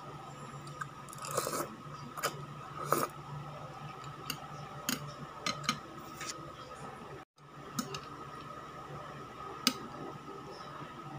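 Eating sounds: noodles chewed and slurped, with scattered sharp clicks of chopsticks against a ceramic bowl, over a steady hum. The sound drops out for a moment about seven seconds in.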